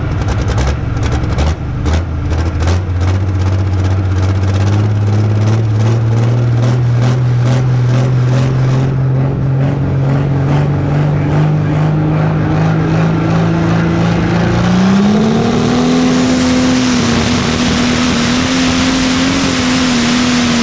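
Pro Stock pulling tractor's turbocharged diesel engine heard up close: running at low speed with a fast, rhythmic clatter while the revs slowly build. About fifteen seconds in, it revs up sharply and holds at high revs as the tractor launches down the track, pouring black smoke.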